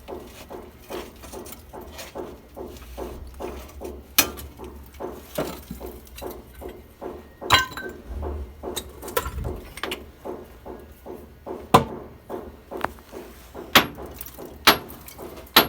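Hacksaw cutting through an old galvanised iron water pipe, rhythmic rasping strokes at about three a second, with a few sharp metallic clinks.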